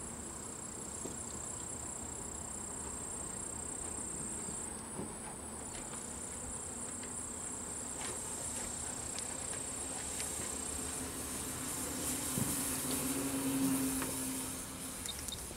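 Electric radio-controlled Yak 54 model plane in flight, its motor and 12-inch propeller buzzing at a distance; the hum grows louder toward the end as the plane comes closer, then drops away.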